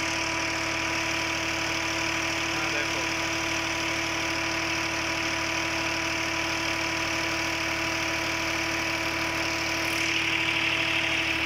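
Fiat 480 tractor's diesel engine running at a steady speed, driving a tubewell pump. Near the end, water gushing from the pump's outlet pipe joins in.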